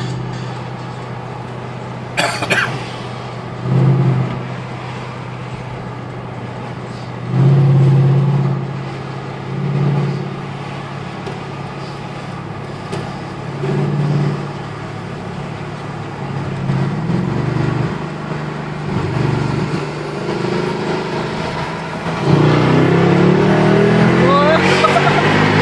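Mercedes-Benz E55 AMG V8 engine, echoing in a tunnel. It cruises at a steady note between several short bursts of throttle, then pulls hard near the end with the pitch climbing.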